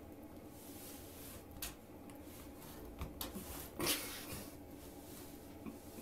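A woven rag rug dragged over a tiled floor and under a door by a cat's paw: soft scraping and rustling with a few light knocks, the loudest about four seconds in, over a faint steady hum.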